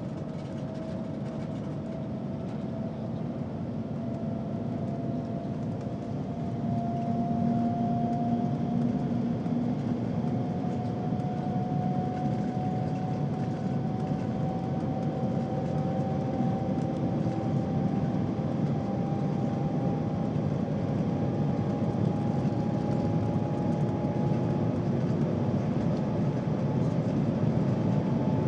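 Cabin noise of the Shanghai Maglev train at speed: a steady low rumbling rush with a thin whine that climbs slowly in pitch as the train gathers speed, growing louder a few seconds in.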